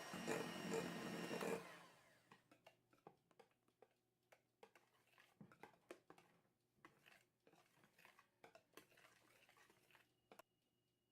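Electric hand mixer running at speed, cutting off about a second and a half in, followed by faint, scattered light clicks and taps.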